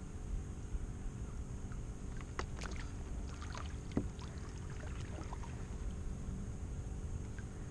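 Live-bait aerator bubbling and humming steadily, with a scatter of light knocks and splashes between about two and a half and five seconds in.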